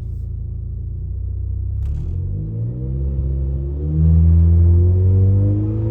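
Ford Focus ST engine idling, then revved up over a couple of seconds and held at a higher, steady speed, as the car is brought up to the set engine speeds of a neutral misfire monitor profile correction.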